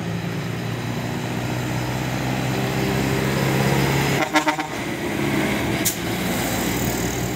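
John Deere farm tractor's diesel engine running steadily as it pulls two loaded grain trailers past, growing louder as it comes close. About four seconds in, a brief rattling clatter as it goes by, then a single sharp click near the end.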